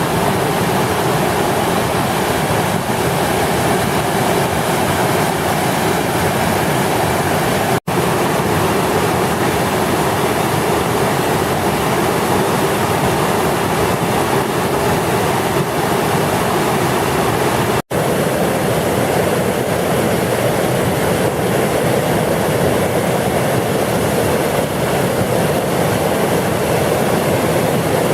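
Floodwater from the Dry River rushing over a submerged road, a loud, steady roar of water broken by two split-second gaps.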